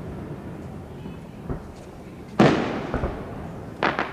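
Aerial firework shells bursting: a faint pop about a second and a half in, a loud boom a little past halfway that fades out slowly, then two sharp cracks in quick succession near the end.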